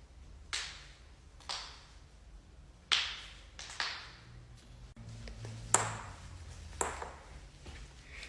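Joints cracking: about six sharp pops, a second or two apart, each dying away quickly.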